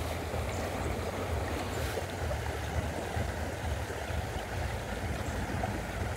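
Steady rush of flowing river water, with a low even rumble underneath.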